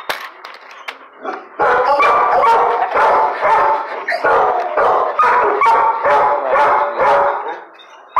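Dogs barking repeatedly in a shelter kennel, about two barks a second, starting about a second and a half in and easing off near the end.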